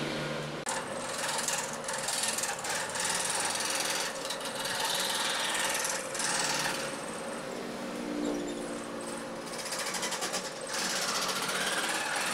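Overhead-arm jig saw (scroll saw) running, its fine blade chattering rapidly up and down as it cuts fretwork patterns through a plywood sheet. The noise drops out briefly just under a second in, then carries on with small rises and falls as the board is steered.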